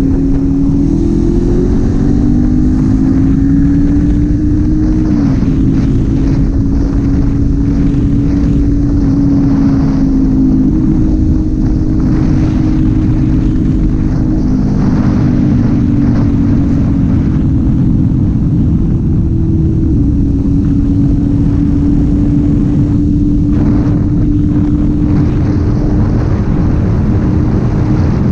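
Kawasaki Z400's parallel-twin engine running at steady riding revs, its note rising and dipping a few times, over a steady rush of wind.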